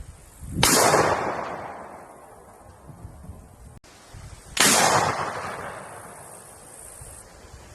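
Two single gunshots about four seconds apart, each a sharp crack followed by an echoing tail that dies away over about two seconds.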